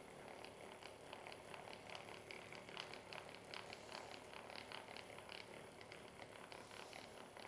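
Faint, irregular rustling with light ticks, several a second, from clothing and the padded treatment table moving under a patient during chiropractic work.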